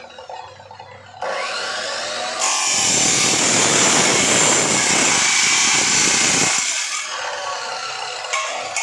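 A power tool cutting, running hard for about four seconds in the middle.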